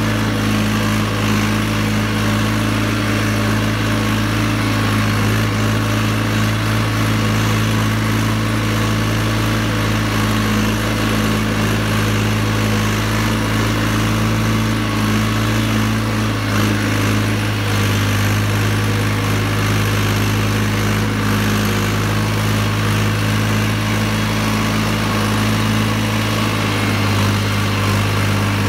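Štore 404 tractor's diesel engine running at a steady speed while the tractor drives through mud, heard from the driver's seat.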